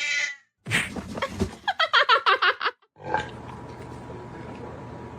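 A cat giving a quick run of short, squeaky cries for about two seconds, followed by a steady background hiss with a faint hum.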